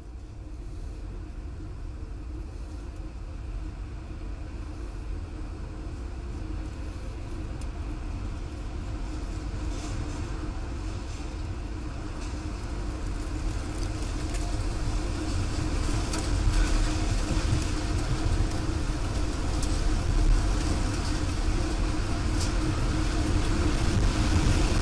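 Tornado winds: a steady rushing, rumbling noise that grows louder throughout, with a few faint clicks.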